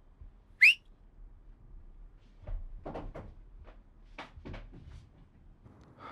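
A single very short, sharp whistle-like chirp rising steeply in pitch, followed a couple of seconds later by a string of light clicks and knocks.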